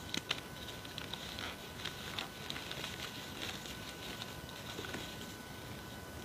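Reformed gym chalk block crushed in the hand: two sharp snaps as it breaks at the start, then a run of dry crunching and crumbling that dies down about five seconds in.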